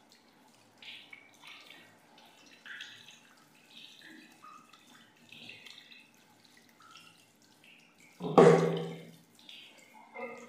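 Thin stream of tap water splashing onto soapy hands as they rub together at a bathroom sink, in small uneven spatters. About eight seconds in comes a sudden loud knock that dies away over about a second.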